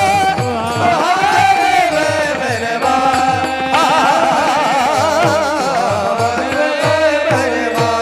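Marathi bhajan music: a singer's ornamented melodic line with wavering, trilling pitch over steady held tones, with regular pakhawaj drum strokes underneath.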